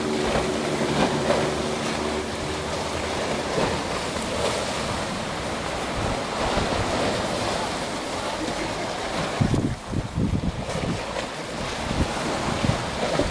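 Sea surf washing against a rocky shore, with wind buffeting the microphone in gusts, strongest about nine to eleven seconds in. A faint steady hum sounds under it in the first few seconds.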